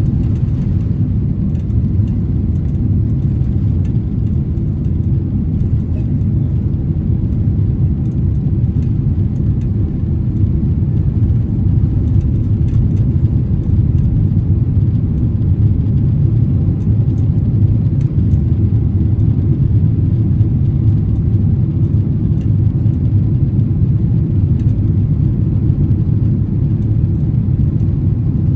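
Steady low rumble inside a Boeing 767-300 cabin, the engines and airflow heard through the fuselage.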